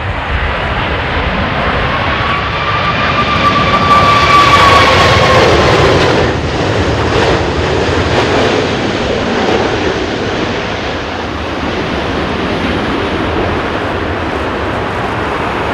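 Airliner's engines flying past on approach to landing. The noise swells to its loudest about four to five seconds in, and an engine whine falls in pitch as the aircraft passes. After that the sound settles into a steady rumble.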